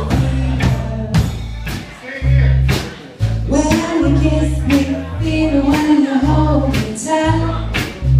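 Live rock band playing: a woman singing lead over electric guitar, a steady bass line and drums, with the drums hitting on a regular beat.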